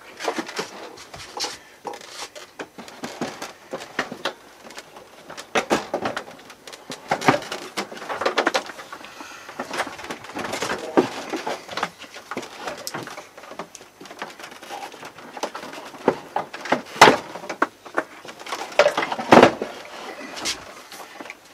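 Irregular scraping, bumping and knocking of a 5000 BTU window air conditioner's casing as it is shuffled and pushed into a tight wooden cabinet opening, with two sharper knocks near the end.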